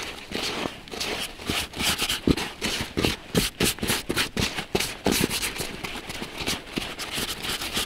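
A busy run of irregular knocks, clicks and scrapes, several each second, with rustling between them, like things being handled and moved about.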